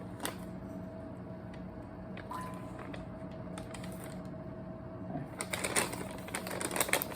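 Plastic MRE heater bag being handled, with scattered small clicks and then crinkling from about two-thirds of the way in, over a steady faint hum.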